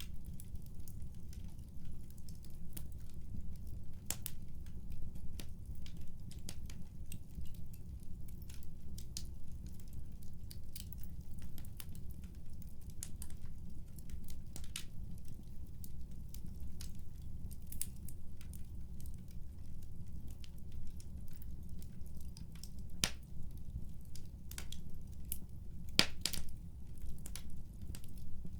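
Wood fire crackling, with irregular small snaps over a steady low rumble and two louder pops near the end.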